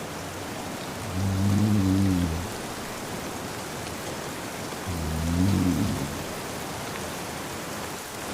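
Steady rain with a man snoring, two low drawn-out snores about four seconds apart, the first about a second in.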